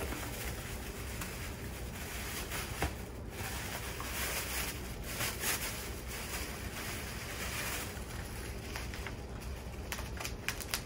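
Plastic bags crinkling and foam packing peanuts shifting as wrapped items are lifted out of a cardboard box, a steady rustle with short crackles throughout.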